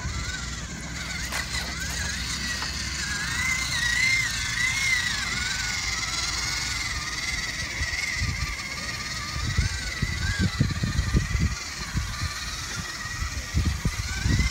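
Electric motor and gearbox of a 1:16 scale WPL B36 RC truck whining, the pitch rising and falling with the throttle as it crawls over rock. From about eight seconds in, irregular low thumps and rumbles join.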